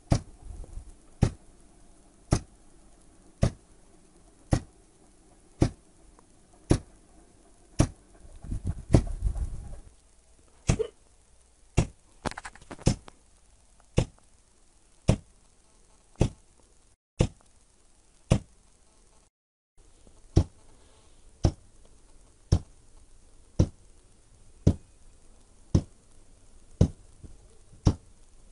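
QCW DRSSTC Tesla coil firing a 20 ms burst about once a second, each one a short sharp crack of the spark discharge, in an even series. A brief low rumble comes about a third of the way in.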